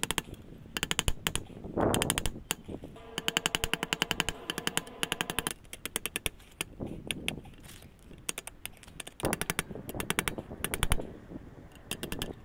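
Hand hammer striking red-hot steel rebar on an improvised anvil in quick runs of rapid blows, the metal ringing during one longer run. The hot end is being hammered over to bend it back into a knife handle.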